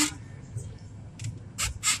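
A car horn's steady single-note blast cuts off at the very start. It is followed by three short scuffing noises about a second in.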